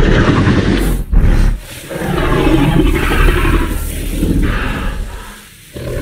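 Therizinosaurus creature sound effects: rough, throaty dinosaur roars. A short loud roar comes just over a second in, then a longer roar fades out, and a new one starts near the end.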